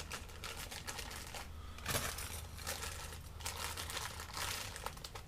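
Packaging crinkling and rustling as small parts are handled, with a sharper click about two seconds in.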